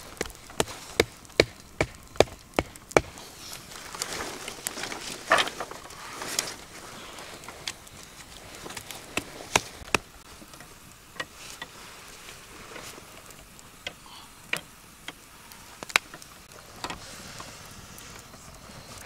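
Wooden sticks and bamboo poles knocked together while they are laid into a grill rack over a wood fire: a quick run of sharp knocks, about one every half second in the first three seconds, then scattered single knocks.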